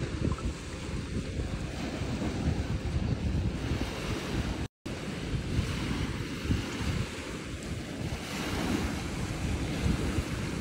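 Wind buffeting the phone's microphone over the wash of small waves breaking on the shore. The sound cuts out completely for a split second about halfway through.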